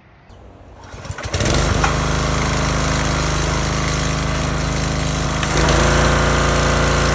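A Husqvarna 3200 psi gas pressure washer's engine starts about a second in and runs steadily. Near the end the trigger is squeezed, and the engine and pump load up with the high-pressure spray, louder. This is a test run after clearing a clogged passage in the unloader valve.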